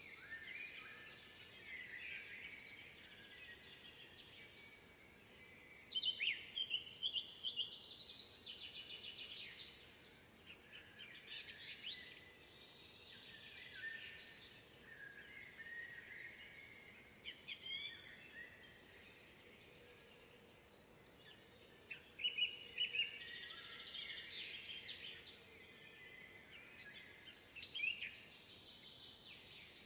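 Woodland songbirds singing: bursts of chirps and trills over a faint steady background hiss, the loudest phrases coming about six, twelve, twenty-two and twenty-eight seconds in.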